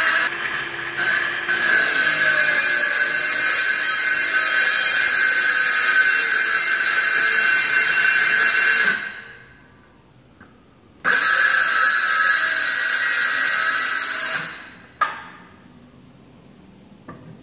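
Circular saw plunge-cutting into a van's wooden floor board, its motor whining steadily for about nine seconds before winding down. A second short run of cutting follows, about three seconds, and winds down too, with a sharp knock just after.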